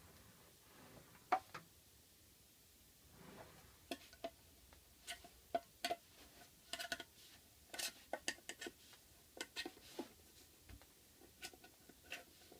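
Scattered light metallic clicks and taps, some with a short ring: a tin of putty being handled and prised open with a metal tool.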